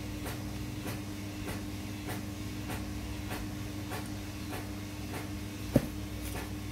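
A steady low hum with faint, evenly spaced ticks a little under twice a second, and one sharp metallic click near the end as a metal airgun frame part is worked by hand.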